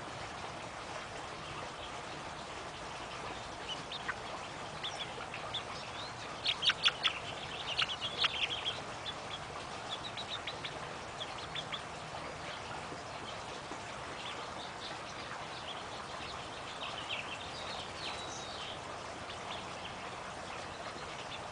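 Domestic hens dust bathing give soft, quick, high chirps and clucks over a steady low hiss. The calls come in a loud cluster about six to nine seconds in, with a few fainter ones later.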